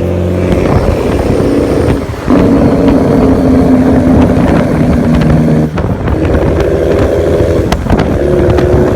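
Big Mack semi-truck's diesel engine rumbling loudly under power, its sound dropping briefly about two seconds in and again near six seconds before picking back up.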